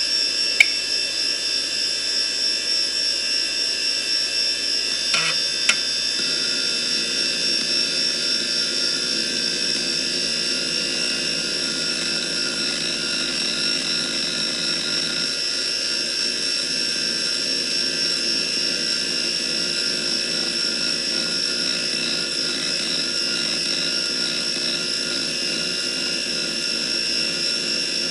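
3.5-inch IDE hard drive spinning with a steady high whine while its heads seek continuously back and forth under a seek test, with a flickering seek noise underneath. A sharp click comes about half a second in, and two more around five seconds in.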